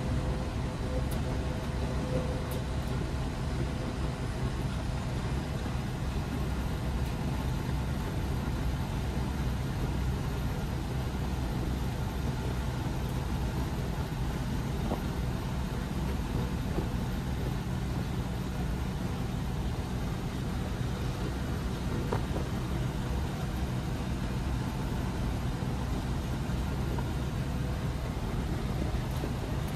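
Bus running on the road: a steady, even drone of engine and road noise with a constant low hum.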